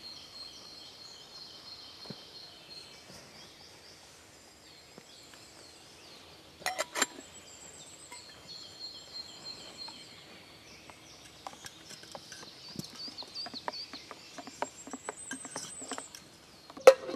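Small birds singing steadily in the forest, with a few sharp metal clinks from a stainless camping pot about seven seconds in. In the last few seconds a spoon stirs and clinks rapidly in a camping mug, the loudest clink at the very end.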